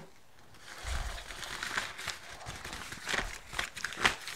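Brown packing paper rustling and crinkling as it is handled and lifted out of a cardboard box, with sharp crackles.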